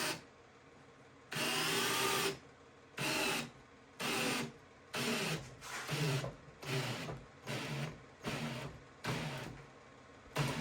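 Ryobi P213 cordless hammer drill driving a lag screw in second gear, run in repeated trigger pulls: one run of about a second, then about ten short bursts that come closer together toward the end.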